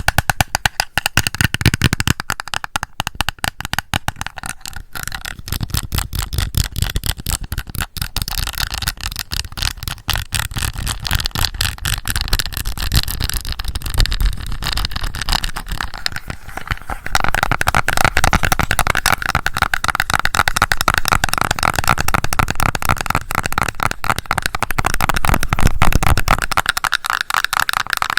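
Fast fingernail tapping on a plastic blush compact, a dense run of small clicks that grows louder partway through.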